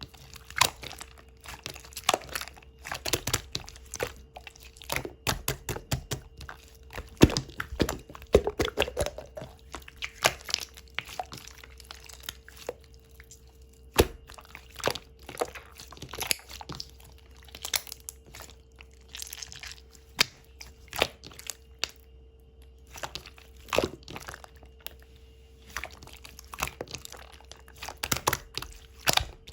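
Slime with gold pearl glitter being squished, pressed and stretched by hand, giving dense, irregular crackles, clicks and wet pops, with a faint steady hum underneath.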